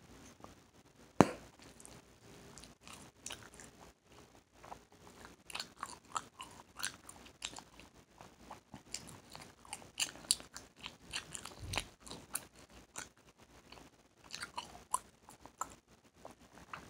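A blown bubble of Hubba Bubba gum pops with one sharp snap about a second in, the loudest sound. Then wet gum chewing with lip smacks and quick cracking snaps.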